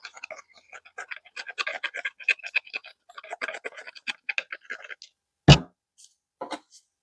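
Rapid scratching and clicking on plastic pipe, worked by hand for about five seconds. Then one heavy thump, and a lighter knock about a second later.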